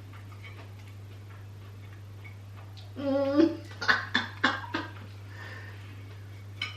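Eating utensils clicking against a plate, four quick clicks close together, just after a short hummed voice sound about three seconds in. A steady low hum sits underneath throughout.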